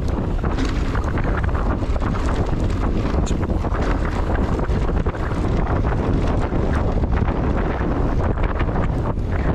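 Heavy, steady wind noise buffeting the microphone of a camera riding along on a mountain bike, with scattered short clicks and rattles over it.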